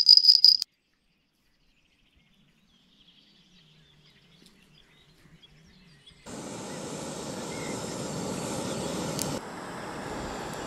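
A feeder rod's bite-alarm bell jingling, cut off abruptly in the first second. A few seconds of near silence follow, then from about six seconds in a steady outdoor background noise.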